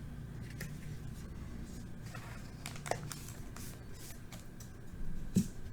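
Faint rustling and scattered light clicks of trading cards and packaging being handled, over a steady low hum.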